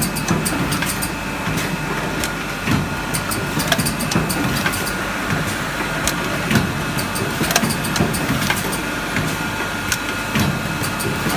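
Fully automatic PET bottle blow-molding machine running: a steady mechanical hum with a few steady whining tones, broken by many irregular clicks and clacks.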